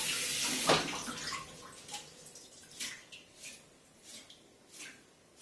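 Kitchen tap running over a bunch of cilantro in the sink, turned off with a loud knock under a second in. Then scattered rustling and dripping as the wet cilantro is shaken out over the sink.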